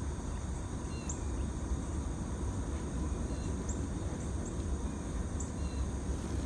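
Outdoor ambience: a steady low rumble with faint, short high chirps every second or so.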